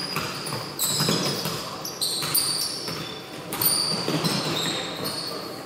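Basketball play: a ball bouncing and sneakers squeaking in short high chirps on the court floor, with a few sharp knocks, one about a second in and others near two and near four seconds.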